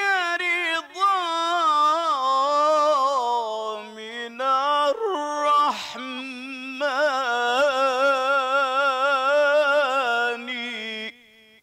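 A solo male voice chants an Islamic ibtihal (devotional supplication), unaccompanied. It sings two long, ornamented phrases with a short break between them, the voice wavering on the held notes. It stops shortly before the end.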